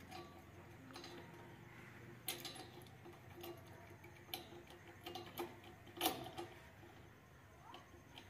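Faint, irregular metallic clicks and taps as a key and bolts are fitted by hand into the hub of a Swaraj 8100 combine harvester's thresher pulley, the loudest click about six seconds in.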